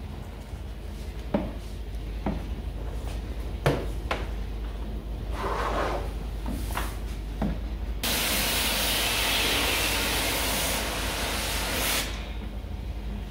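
High-pressure water washer spraying an air conditioner during a cleaning, a loud steady hiss for about four seconds in the second half. Scattered knocks come before it.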